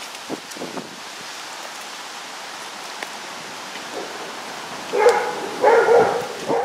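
A dog barking, a few barks in quick succession starting about five seconds in, the loudest sound here. Before it come a couple of footsteps on the sidewalk and a steady hiss of wind.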